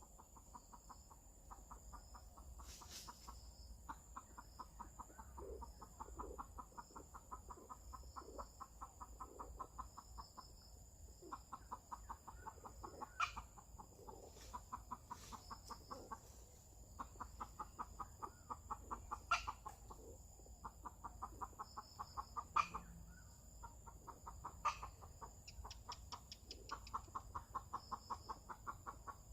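Junglefowl clucking in rapid bursts of a couple of seconds, repeated over and over, with a few sharp clicks in between and a faint steady high tone behind.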